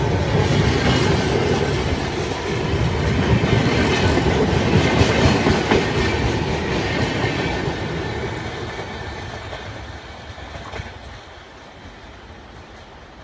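Passenger express coaches running past on the rails, wheels clacking over the track. The sound fades steadily from about eight seconds in as the end of the train passes and draws away.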